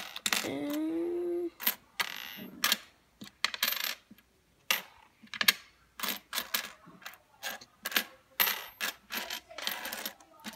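Pennies clicking and clinking against one another and a wooden tabletop as a hand spreads and sorts them, in quick irregular taps.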